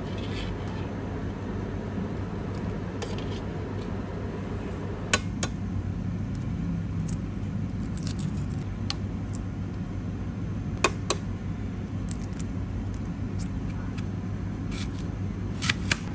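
Hard-boiled egg being cracked and peeled over a ceramic bowl: sharp taps of shell, in pairs about five and eleven seconds in. A knife clicks through an apple onto a plastic cutting board near the end, all over a steady low hum.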